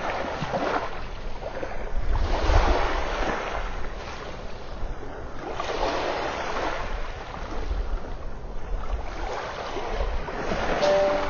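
Small waves washing onto a sandy beach, the surf swelling and fading every few seconds, with a low wind rumble underneath.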